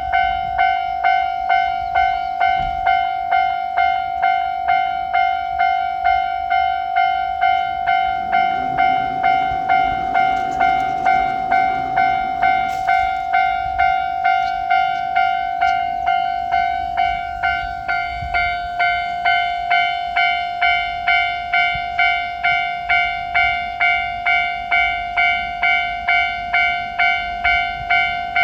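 Japanese level-crossing warning bell ringing its electronic 'kan-kan' tone, struck about twice a second without pause, signalling that a train is approaching. A low rumble briefly joins beneath it about eight seconds in.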